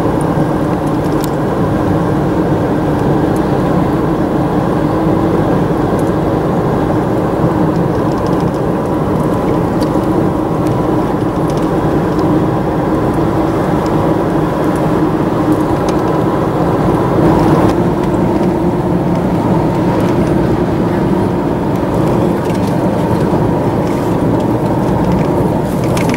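Steady road noise heard from inside a car's cabin while driving at a constant speed on a paved highway: engine hum and tyre noise, with no change in pace.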